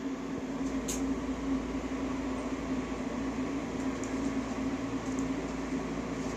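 Steady whirring hum of a machine running, with one constant low drone and no changes.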